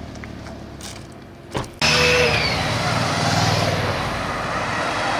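Motor vehicles, a van and cars, driving past on a mountain road: engines running with tyre and road noise, starting abruptly about two seconds in after a quieter stretch with a few light clicks.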